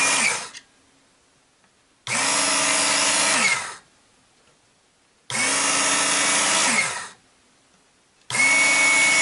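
Work Sharp Knife and Tool Sharpener's electric belt motor running in short bursts of about a second and a half, one for each pass of a knife blade across the abrasive belt. Each burst starts abruptly and ends with the whine dropping as the motor winds down. One run is ending at the start, two full runs follow, and a fourth starts near the end.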